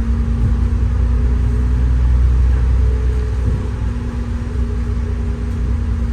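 City bus driving, heard from inside the passenger cabin: a steady engine drone over a deep road rumble, swelling slightly about two seconds in.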